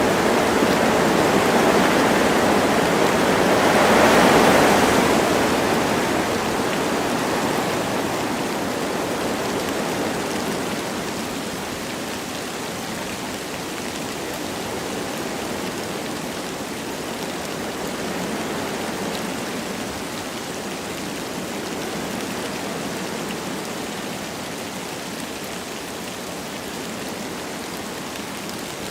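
Wind blowing through forest trees with light rain, a steady rush of noise. A gust swells about four seconds in, then eases to a lower, even level.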